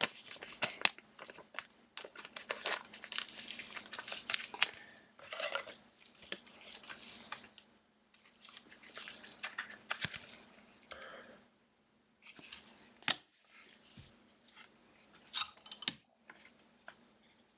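Trading card packaging and plastic sleeves crinkling and tearing as cards are unwrapped and handled, with irregular rustling and sharp clicks.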